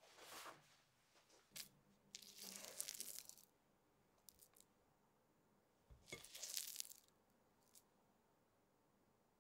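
Silicone spatula stirring and scraping thick chocolate cookie dough in a glass bowl, in two bouts of soft, sticky squishing about two and six seconds in. A brief cloth rustle comes at the very start.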